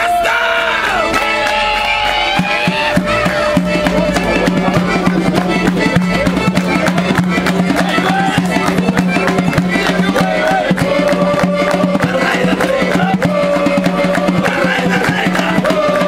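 Lively Circassian dance music with a steady held bass tone, a melody line above it and a fast beat, with the crowd clapping in time.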